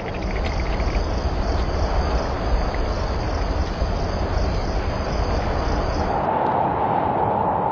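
Crickets trilling steadily at night over a low rumbling noise. About six seconds in, the trilling and the rumble stop and a steady mid-pitched tone takes over.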